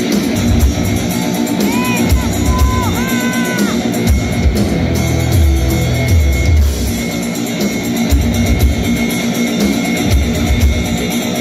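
Heavy metal band playing live: distorted electric guitars over a drum kit, with a few high notes bending up and down about two to four seconds in.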